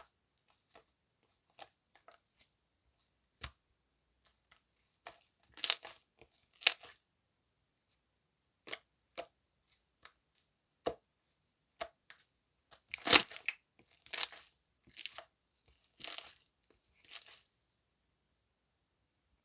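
Jelly slime being handled by hand: scattered sharp clicks and pops, with denser crackling clusters in the second half, the loudest about two-thirds of the way in.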